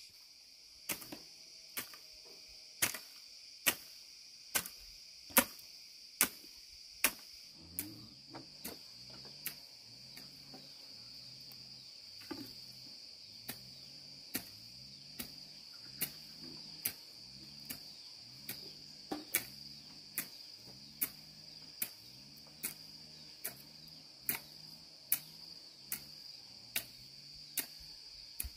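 Steady high-pitched insect chorus, crickets or cicadas, with sharp knocks at an even pace of a little more than one a second, the loudest sound throughout.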